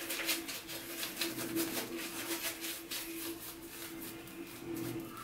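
Synthetic-bristle shaving brush swished in quick, repeated strokes across a lathered face, a few strokes a second, as lather is rebuilt for a second shaving pass. A steady faint hum runs underneath.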